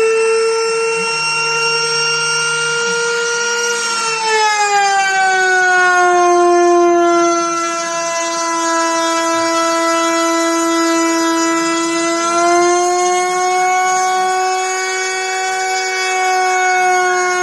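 CNC router spindle whining steadily at high speed. The pitch sags about four seconds in, as it would as the cutter takes load, then climbs partway back around twelve seconds.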